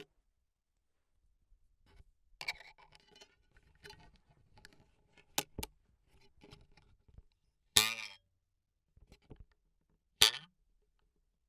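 Close-miked cartoon foley props struck and flicked: a scattered series of sharp knocks and short scrapes, then two louder hits about eight and ten seconds in, each with a brief twanging ring that bends in pitch.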